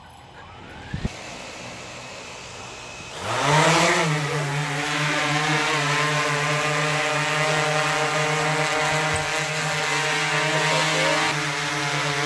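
DJI Inspire quadcopter drone's motors spinning up about three seconds in, the propeller hum rising quickly in pitch, then a steady loud buzzing hum as it lifts off and hovers, wavering slightly in pitch. A couple of soft knocks come about a second in, before the spin-up.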